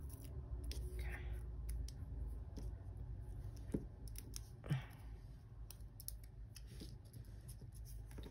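Scattered small clicks and soft paper rustles as stickers are peeled from their backing and pressed onto a planner page with fingernails, including a couple of brief rustles about a second and five seconds in.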